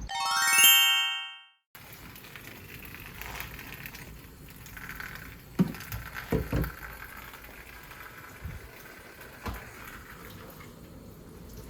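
A short rising chime sound effect with several overtones, cut off abruptly. It is followed by kitchen background with a few clinks and knocks of dishes or utensils.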